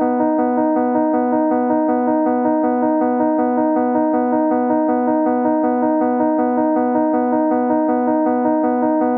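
Background music: a keyboard or electric-piano figure repeating evenly with steady held notes.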